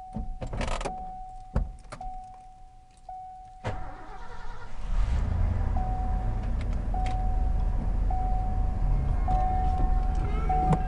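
Keys clicking into the ignition under a dashboard warning chime, then the Ford 460 big-block V8 in an F-250 starts about four seconds in and settles into a steady idle, the chime repeating about once every second or so. The freshly re-cammed engine still has a slight misfire and runs a little shaky.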